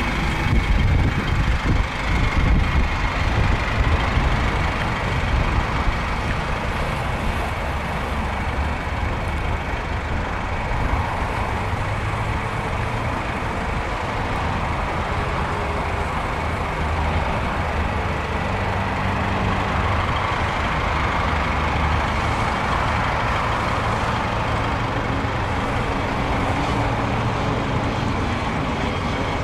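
GAZelle Next minibus engine idling steadily, a little rougher and louder in the first few seconds.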